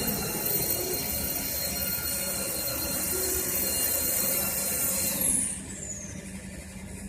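Mini CNC lathe running with a steady high-pitched whine over a hiss of machine noise. About five seconds in, the whine glides down in pitch and the sound drops off as the spindle slows.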